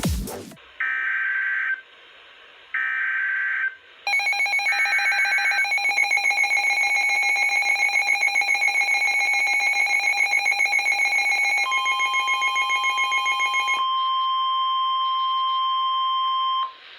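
Emergency Alert System alert opening: three short buzzy digital data bursts of the SAME header, then the attention signal, a loud pulsing alarm tone that gives way to a steady single-pitch tone and cuts off near the end.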